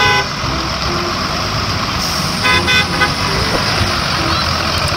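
School bus running and pulling forward on a wet street, its engine noise mixed with tyre hiss on the wet road. Two short pitched tones sound about halfway through.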